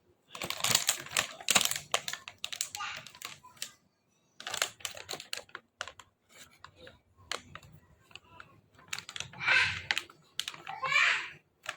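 Irregular clusters of sharp clicks and clatters from small hard objects being handled close to the microphone.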